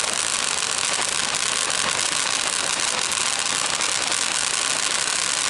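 Firework fountains spraying sparks: a steady hiss laced with fine crackling.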